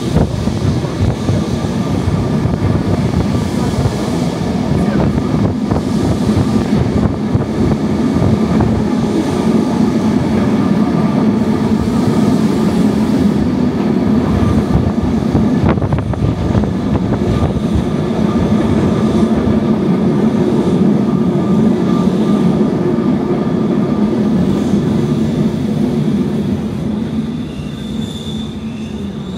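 Electric tram running along its rails, heard from on board: a steady rumble of wheels on track with a low hum. It gets quieter near the end, when a brief high wheel squeal sounds.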